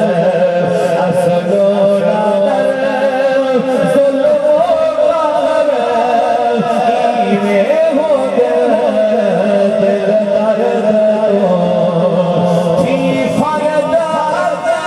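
Naat recitation: a voice singing devotional verse in a winding, ornamented melody over steady held tones in the background.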